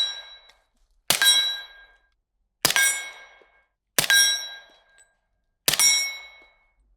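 Suppressed FN FNX-45 firing subsonic .45 ACP, four slow, paced shots about a second and a half apart. Each sharp crack is followed by a brief metallic ring, typical of a steel target being hit.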